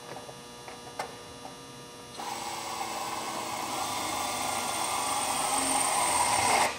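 Pneumatic air drill drilling a pilot hole through a sheet-metal panel: after a couple of light clicks, the drill starts about two seconds in and runs steadily with a high whine, getting louder as it cuts.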